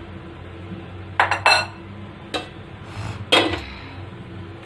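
About four clinks and knocks of kitchenware. A glass bowl with a spoon is moved off the gas stove and a metal kadai is set down on the burner, the last knock ringing briefly.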